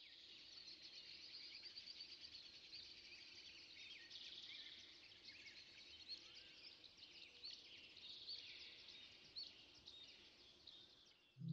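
Faint chorus of small birds chirping and twittering, many quick overlapping calls.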